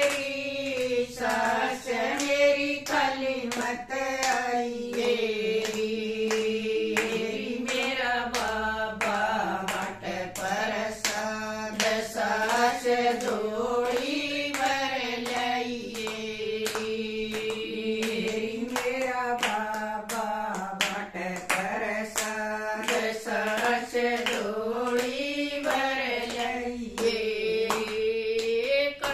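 A group of women singing a Haryanvi devotional bhajan together unaccompanied, keeping time with a steady beat of hand claps.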